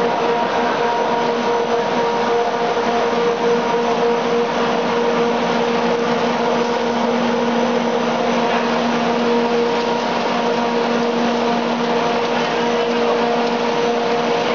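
Pet food processing line machinery running: a steady mechanical drone with a constant humming tone over an even rushing noise, without change.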